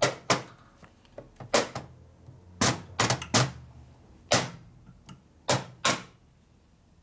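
Sharp metallic clicks and knocks, about eight at irregular intervals, some ringing briefly, from a hand tool working on a 1942 Harley-Davidson WLA transmission case.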